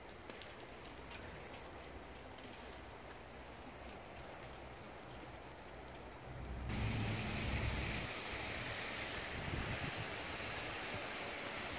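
Outdoor ambience: a low hiss with faint scattered ticks. A little over halfway through it changes suddenly to a louder steady hiss, with irregular low gusts of wind buffeting the microphone.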